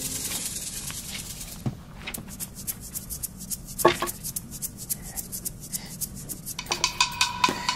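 Handling noises: rubbing and small metal clicks as a sword and objects on a wooden chest are picked up and moved, with a sharper metallic clink about four seconds in. Music comes in near the end.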